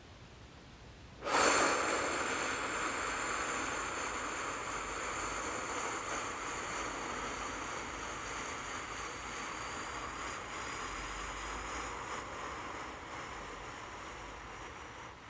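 A wash of hiss from a song's ambient intro or interlude starts suddenly about a second in and slowly fades. A few faint, steady high tones sit above it.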